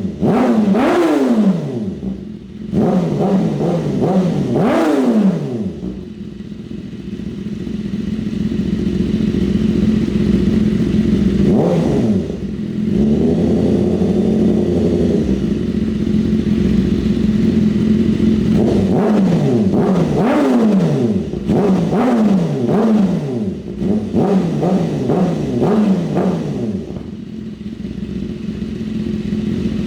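BMW S1000RR inline-four engine running through an Austin Racing GP1R exhaust. It idles steadily and is blipped in quick revs that rise and fall straight back to idle: a few near the start, a single one about twelve seconds in, and a run of blips from about nineteen to twenty-seven seconds.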